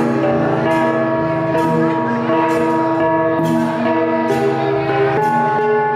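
A cồng chiêng gong ensemble playing: several tuned gongs struck in turn, their tones ringing on and overlapping, with a new stroke every half second to a second.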